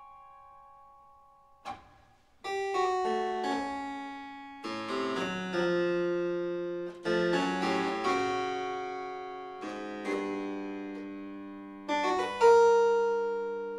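Solo harpsichord playing a slow, free-rhythm passage of contemporary music. A chord dies away into a brief pause, then single notes and chords enter at uneven intervals and ring on, with the loudest chord near the end.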